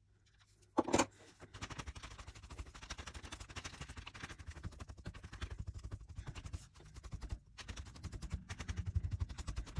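A quick, dense run of small crackling taps and rubs, many a second, from hands pressing and rubbing clear sticky tape against paper, after two louder knocks about a second in.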